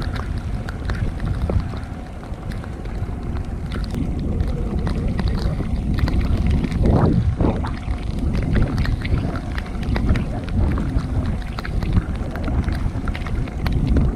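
Wind buffeting the microphone over the low rumble of a boat on open water, with scattered small clicks and a short louder sound about seven seconds in.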